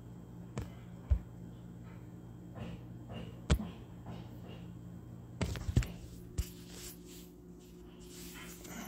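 Smartphone handling noise: a handful of sharp taps and knocks on the phone as it is held and moved, the loudest about three and a half seconds in and a cluster near six seconds, over a low steady hum.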